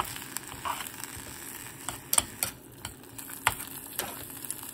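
Sliced pork and onions sizzling in a granite-coated pot as they are stir-fried, with several sharp clicks of chopsticks knocking against the pot.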